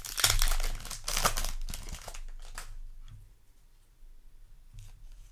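Foil wrapper of a Yu-Gi-Oh! Alliance Insight booster pack crinkling and tearing as it is opened. The rustling is dense for about the first two and a half seconds, then drops to faint rustles.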